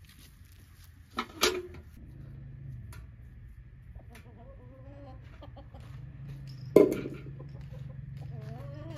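Domestic hens clucking in short, bending calls. Two sharp knocks come about a second and a half in, and one loud clank about seven seconds in, as a metal bucket is set down on the ground.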